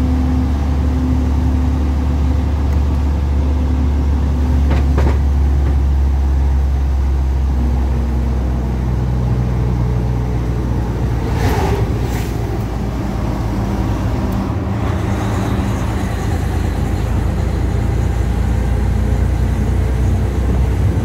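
Heavy truck's engine running steadily at road speed, heard from inside the cab; its note changes about eight seconds in. A few brief sharp noises cut across it, once about five seconds in and twice just past halfway.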